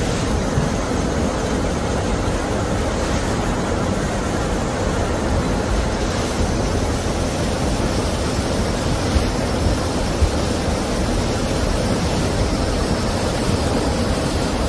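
Steady rushing of fast-flowing floodwater, an even noise with no let-up and a few faint knocks.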